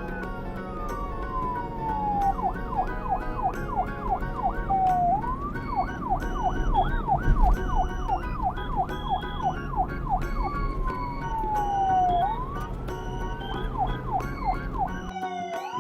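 Police siren alternating between a slow falling wail and a fast yelp of about three cycles a second, over background music with a steady beat.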